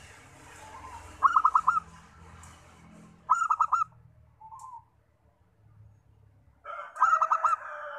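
Zebra dove (perkutut) cooing: three short phrases of about four quick, clipped notes each, spaced a couple of seconds apart. A rooster crows over the last phrase near the end.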